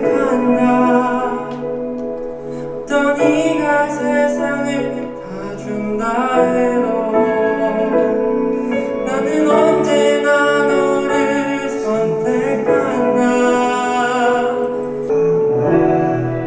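A solo voice singing a slow love song over instrumental accompaniment, in long held phrases.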